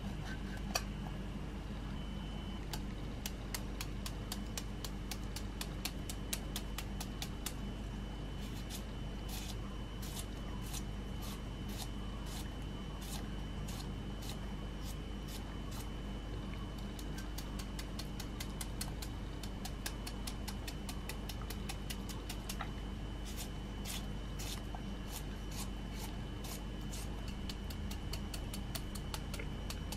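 Kitchen knife cutting through cucumber and tomato held in the hand, a long run of short, irregular crisp clicks, over a steady low hum.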